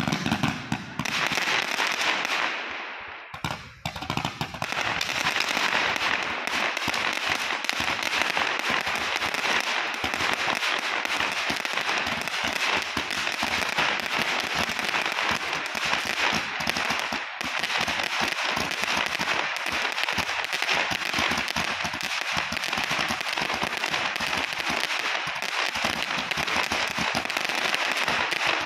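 King Bird 'Gatling Gun' 380-shot roman candle firing comets in rapid succession, a dense, steady stream of pops and crackling, with a brief lull about three seconds in.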